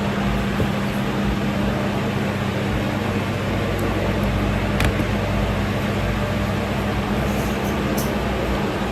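Steady mechanical hum with a fan-like rush, as from an electric motor, with a single short click about five seconds in.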